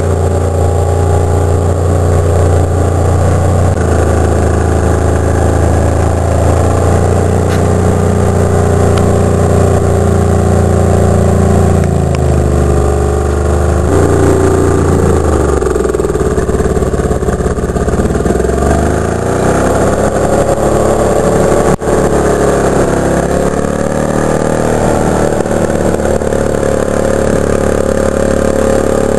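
Fahr KT 10 D single-axle tractor's engine. It runs at a steady speed for the first half, then its speed rises and falls as the tractor pulls away towing a loaded log trailer.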